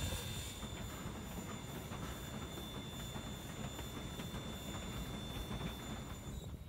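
Narrow-gauge steam locomotive YX141 rolling along the track, heard from its footplate: a steady rumble of wheels and running gear on the rails with faint clicks.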